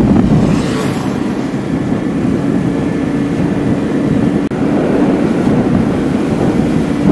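Motorbike riding along at a steady speed: the small engine running evenly under a rush of wind and road noise.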